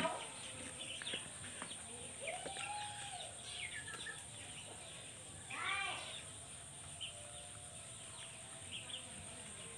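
Chickens clucking and calling now and then in a farmyard, with small birds chirping; one louder call about six seconds in.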